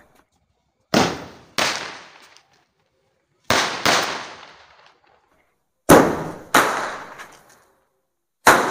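Green seven-star signal rocket, an aerial firework, firing off its stars: seven sharp bangs, mostly in quick pairs, each dying away over about a second.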